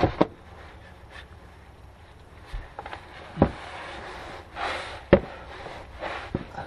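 A socket ratchet with an extension being worked on bolts under a car's rear suspension: a few sharp metallic clinks of the tool against the parts, with short scraping, ratcheting stretches between them.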